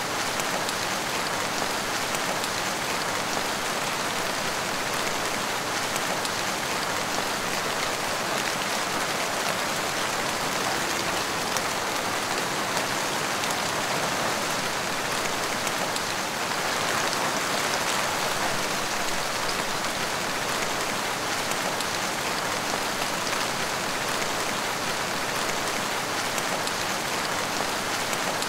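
Heavy rain falling steadily: a dense, even hiss of rain on surfaces, with scattered individual drop taps.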